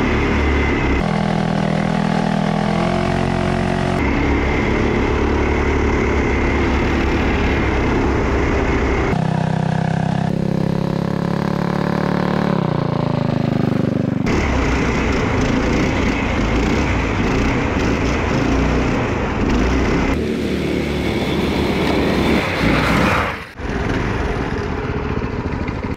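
The four small single-cylinder engines of a four-engine, four-wheel-drive go kart (848cc in all, one engine driving each wheel) running hard off-road. Their revs drop and climb again several times, with a short dip near the end.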